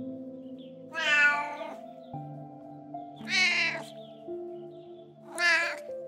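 Domestic cat meowing three times, about two seconds apart, each call short and bending in pitch, over soft background music with long held notes.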